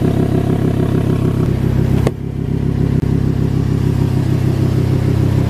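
Audi R8 V10 Plus's 5.2-litre V10 idling steadily, a low even engine hum. About two seconds in the brighter upper part of the sound drops away and a duller hum carries on.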